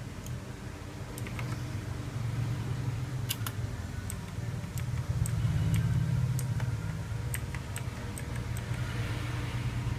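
Keys of a Fuhlen SM690 mechanical keyboard with clicky Blue switches being pressed at an irregular, unhurried pace, each press a sharp click, over a steady low hum.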